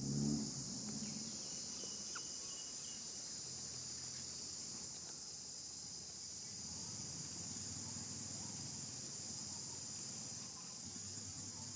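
Insects droning in a steady high-pitched chorus, with a brief low rumble at the very start.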